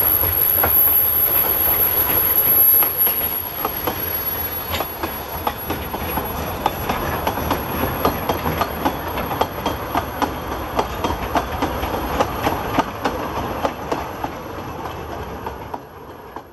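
A narrow-gauge steam locomotive passes close by, loudest over the first few seconds. Its carriages then roll past with a regular clickety-clack of wheels over the rail joints, about twice a second, fading away near the end.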